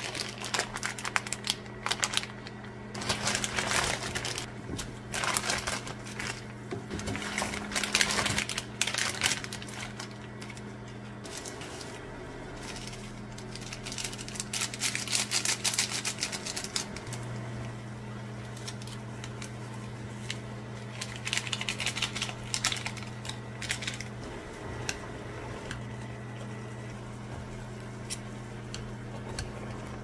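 Electric cooktop humming steadily under a pot of boiling water, with bursts of packet crinkling and rustling as instant-noodle packaging and a flakes sachet are opened and shaken out over the pot.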